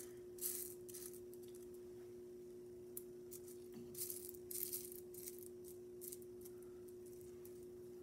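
Small ceramic mosaic pieces clinking and rattling against each other as they are sifted in a palm, in short scattered bursts over a faint steady hum.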